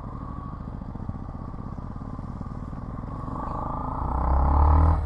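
Motorcycle engine running under way, heard from the rider's own bike, growing louder about four seconds in.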